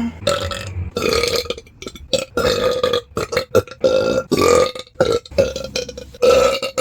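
A person belching loudly, a quick run of separate burps one after another with short gaps between them. Each burp lasts under a second and holds a fairly steady pitch.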